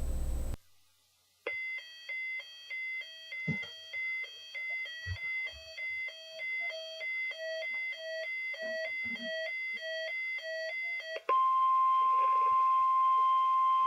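A weather-alert radio receiver's alarm: high alternating beeps repeating about twice a second for about ten seconds. Then the steady NOAA Weather Radio 1050 Hz warning alarm tone comes on, loud and unbroken, marking an incoming alert.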